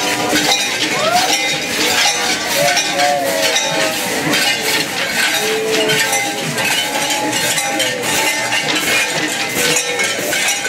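Bells clinking and jangling without a break, with a few scattered calls over them.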